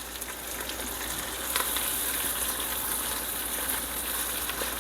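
Onions, mushrooms and orange and red peppers sizzling in oil and butter in a frying pan, with a few light clicks. The sizzle grows louder about a second and a half in.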